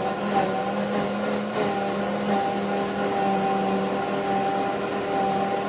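WantJoin commercial blender running steadily under its soundproof shield on its smoothie program, blending chickpea hummus: an even motor hum with the whir of the blades.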